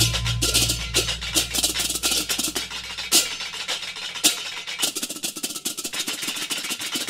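Music with fast, dense percussion over a low sustained bass that fades out partway through.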